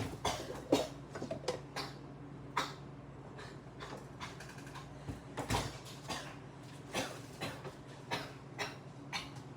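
Scattered knocks and clicks of things being handled in a kitchen, over a steady low hum; the sharpest knocks come a little under a second in and about five and a half seconds in.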